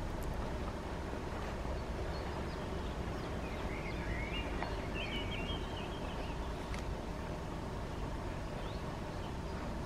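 Garden ambience: a steady low rumble with small birds chirping briefly a few times.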